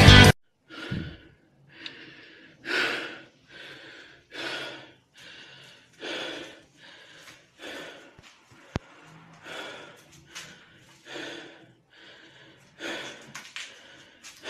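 Music cuts off, then heavy breaths come in a steady series, about one a second, with one sharp click about two-thirds of the way through.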